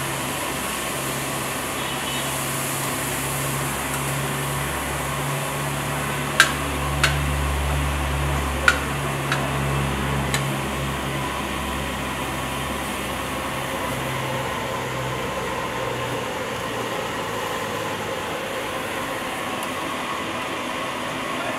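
Steady sizzling of chopped meat frying on a large round steel griddle pan, with a few sharp clinks of a metal spatula against the pan between about six and ten seconds in. A low hum swells up in the middle and fades underneath.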